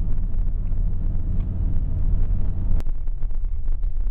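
Steady low rumble of a truck driving, with a single sharp click almost three seconds in, after which the rumble drops.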